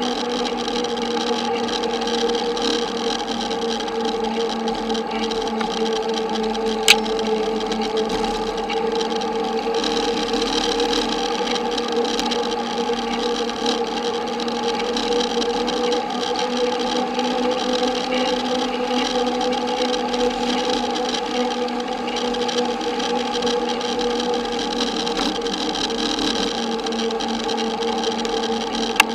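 A steady mechanical hum with several held tones that barely change, and a single sharp click about seven seconds in.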